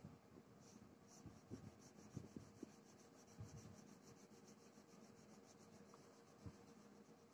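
Faint, quick back-and-forth scratching of an orange colour pencil shading on paper, in even strokes several times a second, with a few soft knocks of the hand on the paper.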